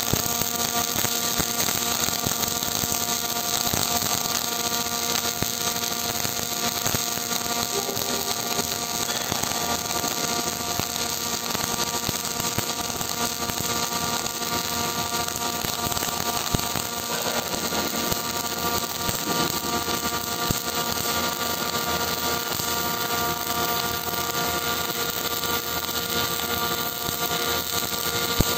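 Gas metal arc (MIG) welding arc crackling steadily as a continuous bead is run, with a few sharper pops, over a steady hum of several tones.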